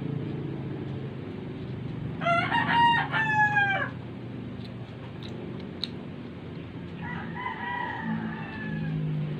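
A rooster crowing twice: a loud crow about two seconds in, then a fainter one near the end, over a steady low hum.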